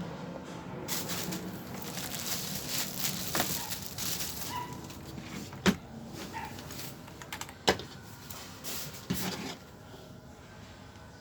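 Rustling and handling noises, with two sharp knocks a little past the middle, about two seconds apart.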